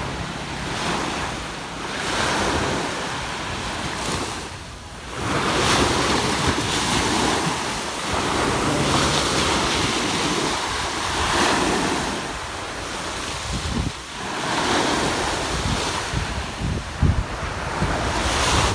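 Sea waves washing onto a sandy beach, the surf swelling and fading every few seconds, with wind buffeting the microphone in low rumbling gusts that jolt sharply near the end.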